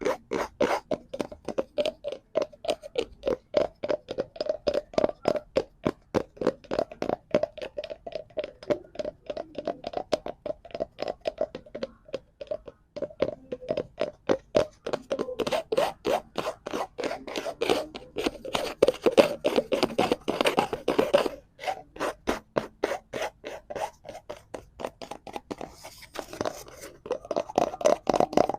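Rapid, rhythmic tapping and scratching on a cardboard prop, about four strokes a second, with a short break about three-quarters of the way through.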